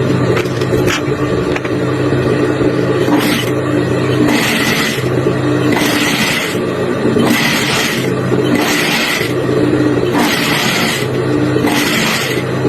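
Factory machinery running in a regular cycle: a steady hum with a hissing burst about every second and a half.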